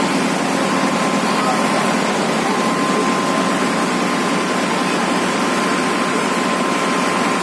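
Ferry boat's engine running with a steady drone and a thin, constant whine.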